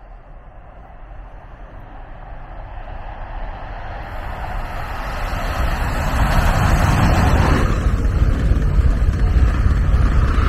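Double-deck passenger train approaching and passing close by, its rumble growing steadily louder over the first several seconds and staying loud as the coaches go by. A rushing hiss above the rumble drops away suddenly about three-quarters of the way through.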